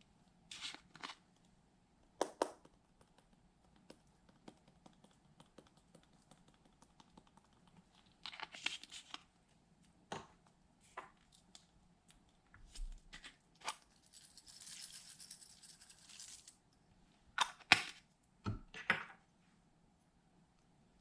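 Slime being worked by hand: stretched, pressed and pulled apart, giving short sticky crackles and tearing sounds at irregular moments, with a longer soft hiss about two-thirds through and the sharpest crackles near the end.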